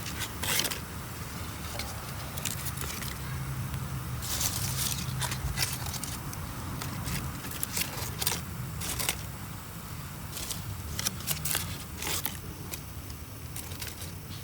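Damp firewood crackling in a small wood fire, with irregular sharp snaps and pops as the fire is just starting to catch.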